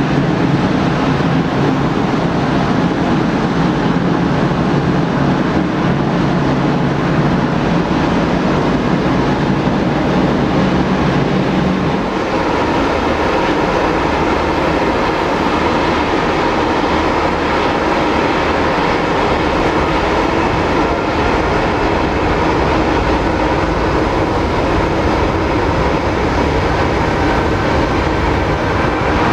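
Jet engines of a Boeing 787-8 running at taxi power: a steady rushing noise with a faint whine, changing in character about twelve seconds in.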